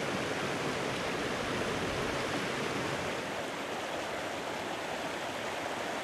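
Mountain stream rushing over rocks: a steady, even sound of flowing water.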